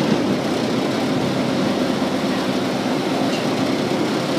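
Steady mechanical rumble and rattle of a small canal boat's motor running at a constant speed.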